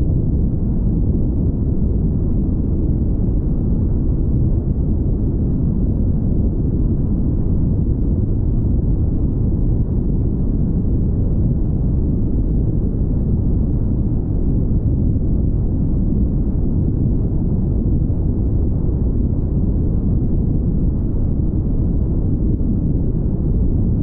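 Steady low rumble of a car travelling at highway speed: road and wind noise.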